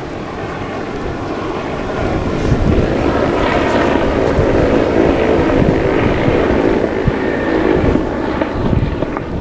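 Engine of a radio-controlled model airplane flying past, growing louder and then easing off, with wind buffeting the microphone.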